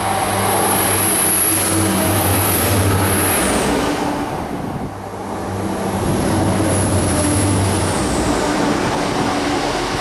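A Class 175 diesel multiple unit passing close by under power, its underfloor Cummins diesel engines running with a high whine above. The sound is loud twice, dipping briefly in between, and the whine drops in pitch as each part of the train goes past.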